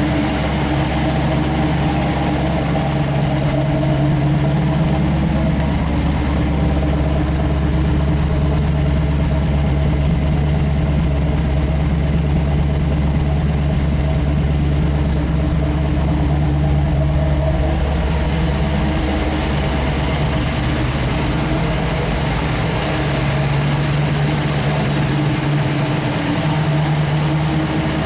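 1968 Pontiac Firebird's freshly built V8 (a 428 stroked to 462 with a 455 HO top end) idling steadily.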